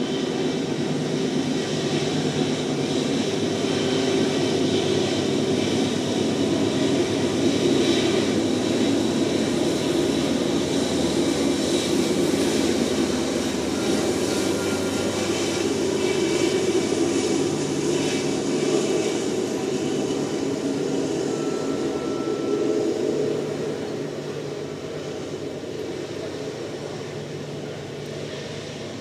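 A freight train passing, hauled by BNSF diesel-electric locomotives. The engines run with a steady low tone over rolling-wheel noise, and the sound drops a little about three-quarters of the way through as the freight cars roll by.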